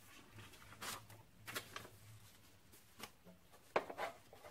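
Pencil scratching on paper as figures are written out, a few short scratchy strokes with pauses between them, the loudest near the end, along with light paper rustling.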